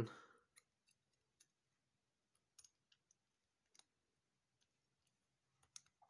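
Faint, sparse clicks of a Sparrows Sandman lock pick working inside the keyway of a small wafer-type window sash cable lock, a few scattered ticks with a closer group near the end.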